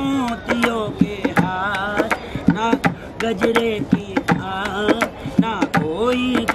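A man singing in a strong voice with wavering, held notes, keeping a beat by striking a black plastic canister with his hands as a drum, a few sharp strokes every second.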